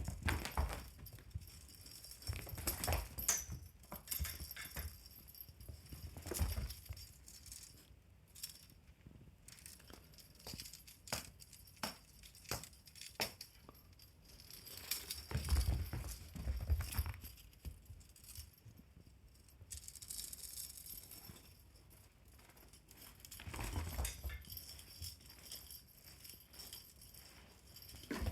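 Small bells jingling and rattling in irregular bursts as pets play with a fishing-rod teaser toy, with soft low thumps of pouncing and landing, loudest around the middle.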